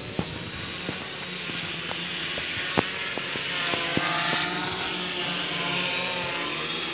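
F450 quadcopter's four brushless motors and propellers whirring steadily while it hovers just above the grass, with a strong hiss of rushing air and a pitch that wavers slightly. A handful of sharp clicks come in the first four seconds or so.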